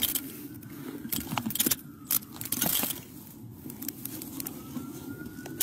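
Steel handcuffs clinking and ratcheting shut in a run of sharp clicks as they are locked onto a suspect's wrists, over rustling of clothing against the body-worn camera. A faint siren starts rising near the end.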